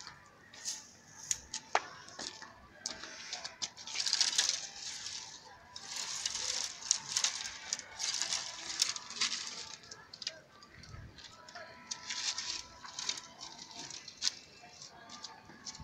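Dry branches and twigs being gathered up and handled: rustling and scraping in repeated stretches, with many sharp snaps and clicks of the brittle wood.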